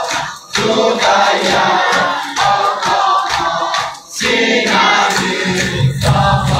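A group of male mourners, many of them boys, chanting a Muharram lament (noha) in unison, with rhythmic chest-beating. The chant comes in phrases, broken by short pauses about half a second in and about four seconds in.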